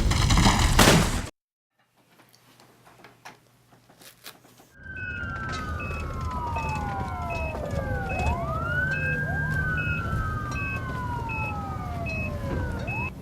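A loud noisy blast cuts off about a second in. After a few seconds of near quiet, several emergency-vehicle sirens wail together in overlapping falling and rising glides, with a short high beep repeating about twice a second over a low traffic rumble.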